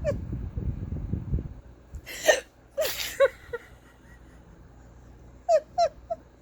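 A person's hiccups in a persistent bout: short, sharp, squeaky gulps, a cluster of them about two to three and a half seconds in and three more near the end.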